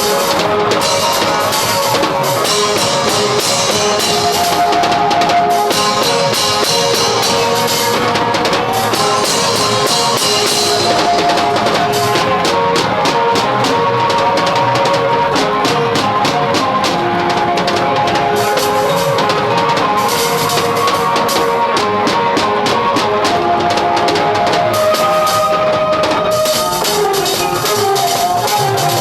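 Live Benin (Edo) band music: melodic instruments over a steady drum beat, with the percussion growing denser about twelve seconds in.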